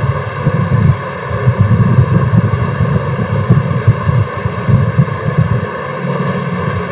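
Steady low rumbling background noise with a buzzing electrical hum running under it.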